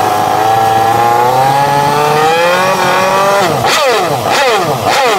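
Honda RC213V-S's V4 engine running at a steady idle whose pitch slowly creeps up, then about halfway through it is blipped sharply several times in quick succession, each rev rising and falling back.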